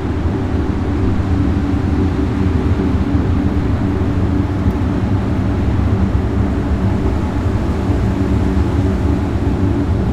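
A steady low drone: a continuous rumble with several held low tones layered over it, unchanging throughout.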